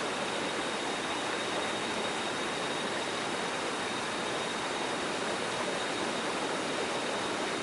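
Steady rushing of a forest stream or small waterfall, an even wash of water noise, with a thin steady high tone above it.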